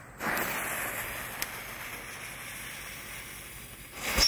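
A Dragon Boat ground firework's fuse hissing as it burns, fading slowly. Near the end the firework ignites with a sudden, much louder rush as it starts spraying flame and sparks.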